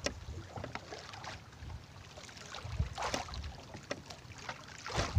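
Wind buffeting the microphone and water sloshing around a small fishing boat at sea, with a few sharp knocks.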